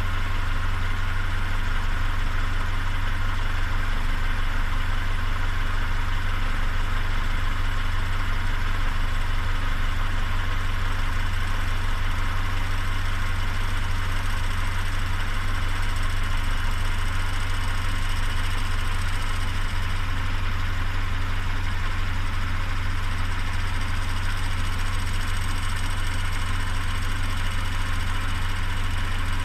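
Peugeot 407's EW10A 2.0-litre four-cylinder petrol engine idling steadily, carrying the unexplained odd noise that the owner is recording.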